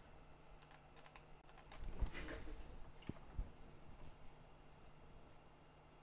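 Quiet handling noises on a repair bench: scattered light clicks and taps, with a soft knock about two seconds in and another about three and a half seconds in.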